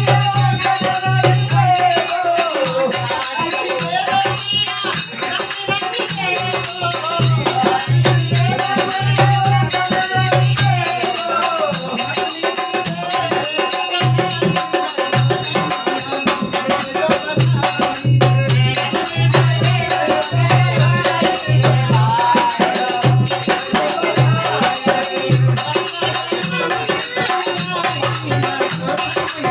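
Sohar folk song: singing voices over a dholak barrel drum keeping a steady repeating beat, with jingling percussion.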